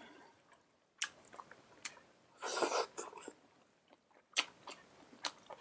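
Close-miked chewing and biting of food, with scattered sharp clicks and a louder, noisier half-second burst about two and a half seconds in.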